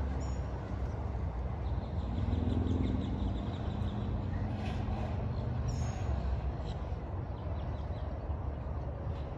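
Disney Skyliner gondola running with a steady low rumble; a pitched mechanical hum swells about two seconds in and fades a few seconds later. A few short high bird chirps sound over it.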